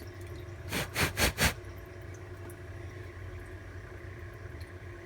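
Steady hum of a home CNC mill setup, with its power-supply fans and machine running. About a second in it is broken by four short, loud noisy bursts in quick succession.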